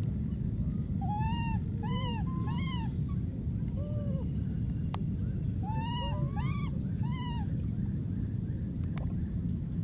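Baby monkey giving short, arching high-pitched cries in two runs of several calls, with a few single calls between: distress calls. Under them runs a steady low background noise.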